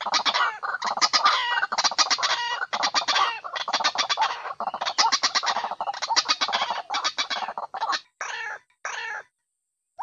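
White-breasted waterhen ('ruak-ruak') lure call: a fast, unbroken run of harsh, repeated calls, breaking into two short bursts near the end and then stopping.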